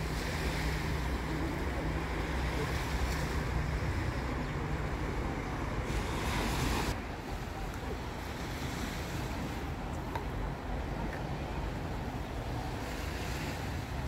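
Small sea waves washing on a rocky shore, with wind rumbling on the microphone; the rumble eases about seven seconds in, leaving a steadier, softer wash.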